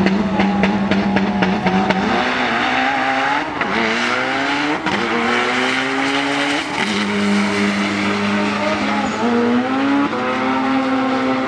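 Import drag car engine held at steady high revs with rapid popping, then accelerating hard down the strip. Its pitch climbs and drops back at each of about three gear shifts, then holds steadier near the end.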